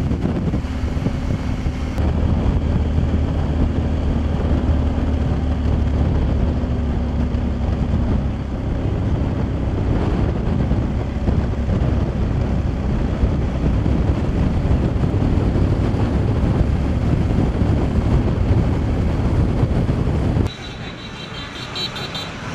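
Engine of a camera vehicle pacing the riders, with wind rushing over the microphone: a loud, steady low rumble that cuts off abruptly near the end, leaving a much quieter background.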